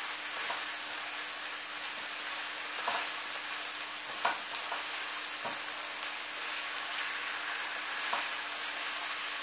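Tofu and vegetables sizzling steadily in a hot wok as they are stir-fried with a spatula, with about five brief scrapes and taps of the spatula against the pan.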